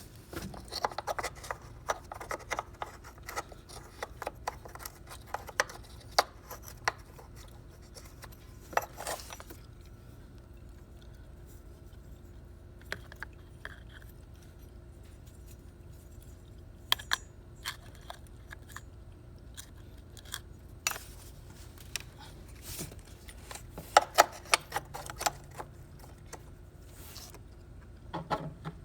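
Scattered metallic clinks, clicks and knocks in bursts with quieter gaps, from the battery hold-down clamp and its screw being handled and fitted after a new car battery has been set in place.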